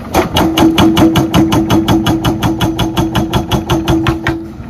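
Hydraulic rock breaker on a tracked excavator hammering rock in rapid, even blows, about seven a second, over a steady hum; the hammering stops near the end.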